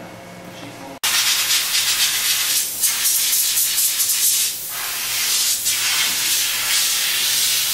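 Air nozzle on a hose hissing as a jet of air blows a stained microscope slide dry. The hiss starts abruptly about a second in and holds steady, with a short dip partway through.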